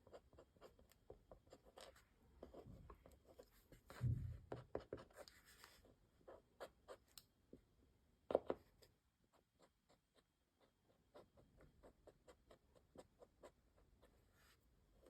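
Faint scratching and tapping of an acrylic paint marker's tip against laser-cut wood, with a soft knock about four seconds in and another a little after eight seconds.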